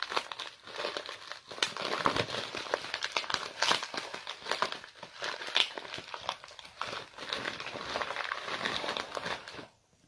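Plastic packaging crinkling and rustling as hands unwrap a parcel to free a small tub. The crinkling stops shortly before the end.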